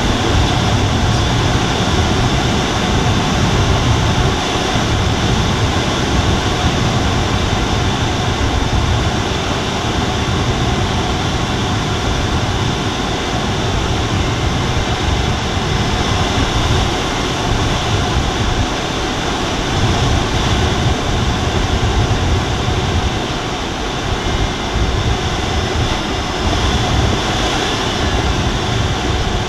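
Steady rush of airflow in the cockpit of an Alisport Silent-in motorglider gliding with its engine stowed, with a low wind rumble that swells and fades.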